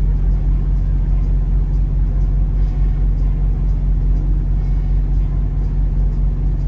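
Semi truck's diesel engine running with a steady low drone, heard from inside the cab.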